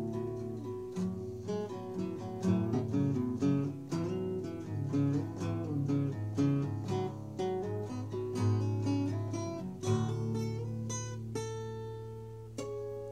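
Acoustic guitar played unaccompanied, a quick run of picked notes and strummed chords, then a chord about ten seconds in left to ring and fade away.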